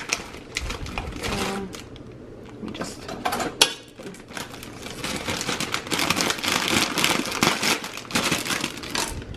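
Plastic bag crinkling and dried chile peppers crackling as they are pulled out, broken open and dropped into a stainless steel bowl, with one sharp snap a few seconds in.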